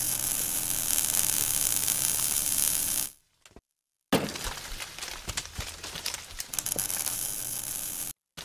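Logo-intro sound effects: a dense crackling hiss that fades out about three seconds in, then, after a short silence, a sudden hit followed by crackling and clinking that cuts off abruptly near the end.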